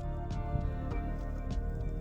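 Background music with a gentle, regular beat.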